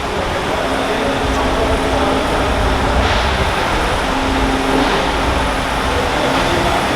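Heavy truck engine running steadily at a concrete pour, a low rumble with a faint hum that comes and goes.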